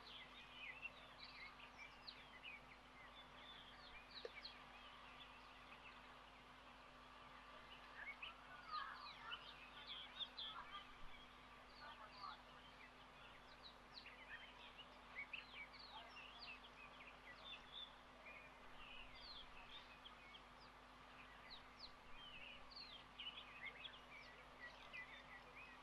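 Faint outdoor ambience of many small birds chirping, with short high calls scattered throughout and busiest about a third of the way in, over a steady faint hum.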